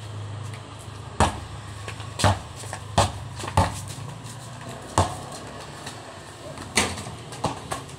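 A basketball being dribbled on a concrete court: about seven separate bounces at uneven gaps of roughly half a second to two seconds.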